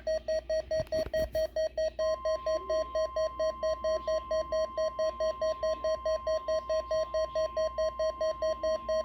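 NOAA Weather Radio warning alarm test: a weather radio receiver's beeping alert, about five beeps a second, joined about two seconds in by the steady 1050 Hz warning alarm tone that sets off alert receivers. A couple of knocks about a second in.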